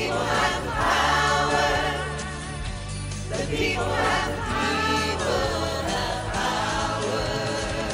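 Mixed choir of men's and women's voices singing together, over steady low accompaniment.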